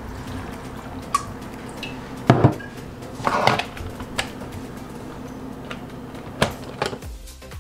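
Plastic lid being set on and pressed onto a Ninja blender pitcher: a series of hard plastic clunks and clicks, the loudest about two and a half seconds in, a cluster about a second later and a couple more near the end, over a steady low hum.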